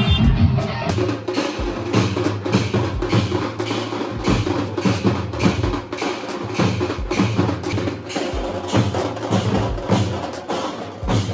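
Street band of drummers beating large steel-shelled drums with sticks: a fast, even rhythm of sharp stick strokes, about four a second, with deeper drum beats among them.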